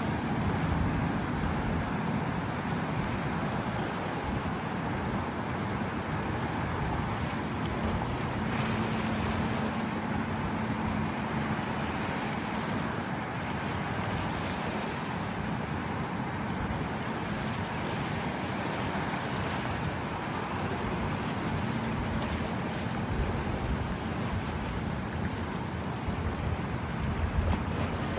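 Steady rushing wind and water noise, like waves washing along a shore, with a faint low hum that comes in twice.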